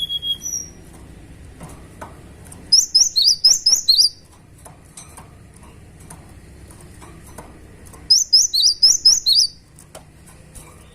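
Cinereous tit (gelatik batu) singing: a brief call at the start, then two bursts of rapid, sharp, repeated chirping notes, each lasting about a second and a half, with a pause of several seconds between them.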